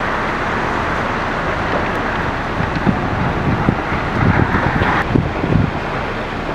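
Strong wind blowing across the microphone: a steady rushing noise with gusty low rumbles, the hiss easing about five seconds in.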